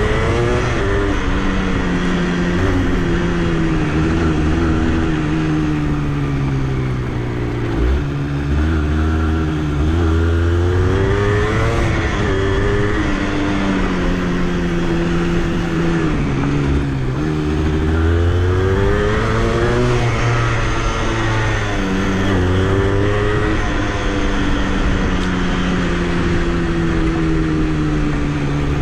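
Honda CRM80's two-stroke single-cylinder engine running under way, its pitch rising and falling again and again as the throttle opens and closes.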